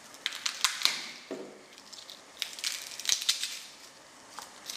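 Garlic cloves being peeled by hand, their dry papery skins crackling in irregular sharp clicks.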